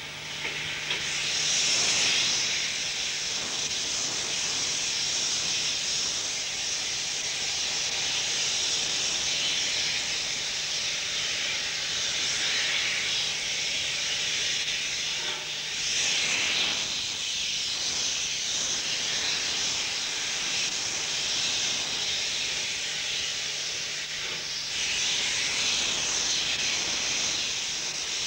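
Steam hissing from a South African Railways steam locomotive's open cylinder drain cocks. It is a continuous hiss that swells louder three times, about two seconds in, past halfway, and near the end.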